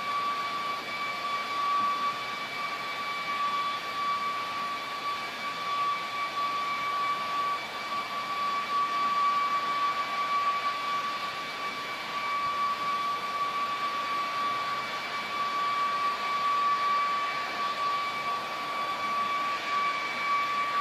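A very loud, steady, unexplained high-pitched whine over a rushing hiss, holding one pitch throughout without rising or falling: the 'strange sound' heard over the city, of unknown origin.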